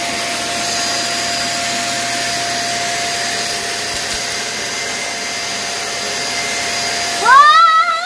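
Deerma DX700 corded stick vacuum running steadily over the floor: a constant motor whine over a rushing hiss of airflow. Near the end a loud, wavering pitched cry rises over it.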